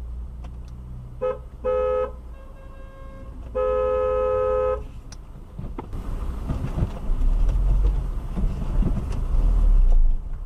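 Car horn honking several times: a short toot, a slightly longer one, a faint one, then a held blast of about a second. After that, a low engine and road rumble grows louder as the car moves off.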